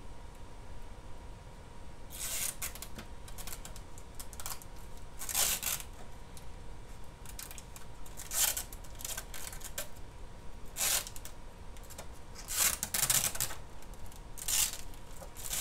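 Thin plastic protective film being peeled off a sheet of FEP release film, crinkling in about six short bursts a couple of seconds apart.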